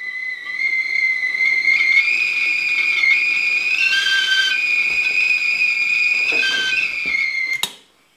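Stovetop whistling kettle whistling at the boil on a gas burner: one loud high whistle that wavers and briefly splits into two tones in the middle. It cuts off abruptly with a click near the end.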